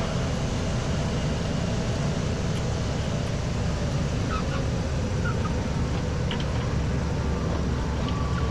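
Pitts S-1S biplane's engine running at low power with its propeller, a steady low rumble through the landing and rollout. A few faint short chirps come in the middle.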